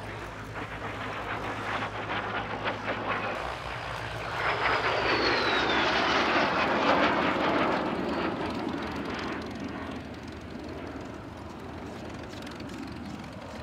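De Havilland Vampire jet fighter flying past: the jet roar swells to its loudest a few seconds in, with a high whine that falls in pitch as it passes, then fades away.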